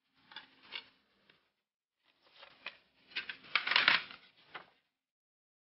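Handling noise from a CD and its paper booklet: a few light clicks in the first second, then a stretch of paper rustling and rubbing from about two seconds in, loudest near four seconds.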